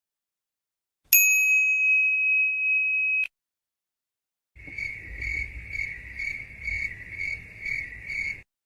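Two clip-art sound effects in turn. First a bell-like electronic ding that holds steady for about two seconds and cuts off abruptly. Then, after a short gap, a high pulsing tone that beats just under three times a second over a low rumble and stops suddenly.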